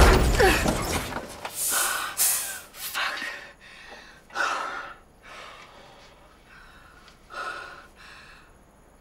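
A woman gasping and breathing hard, a handful of sharp separate breaths at irregular spacing that grow quieter toward the end, with music fading out at the start.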